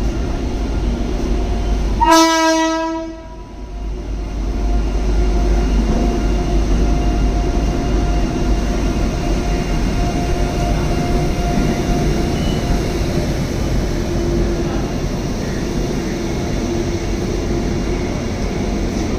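WAG-9HC electric locomotive sounding one short horn blast of about a second, a couple of seconds in. After it, the locomotive's steady running hum carries on.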